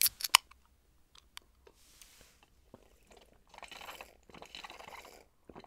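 A few sharp plastic clicks as the cap of a small plastic juice bottle is worked open, then sipping and swallowing from the bottle in two stretches starting about three and a half seconds in.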